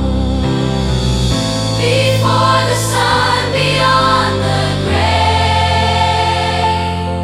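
Worship music: a choir singing sustained wordless notes over held low accompaniment.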